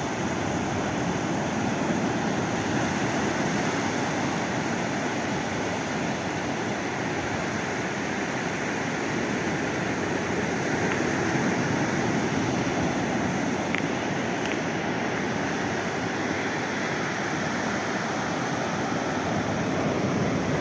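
Ocean waves, a steady rushing wash that swells slightly a few times.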